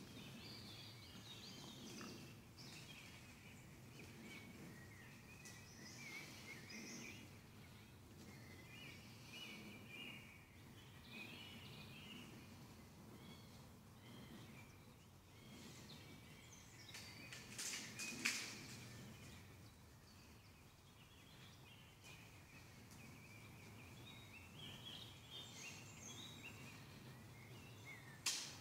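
Faint woodland birdsong, small birds calling on and off throughout, with a few short sharp clicks, the loudest about two-thirds of the way through and another near the end.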